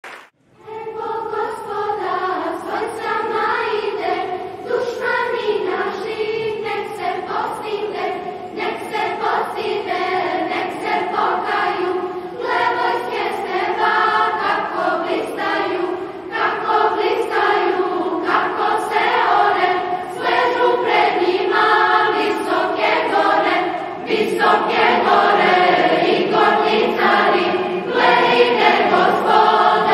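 A large choir of children's and adults' voices singing a Serbian hymn together. The singing starts about half a second in and swells louder about 24 seconds in.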